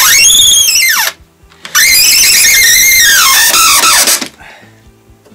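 Corded electric drill run twice into wooden formwork boards, its motor whining up in pitch and back down each time, the second run longer than the first.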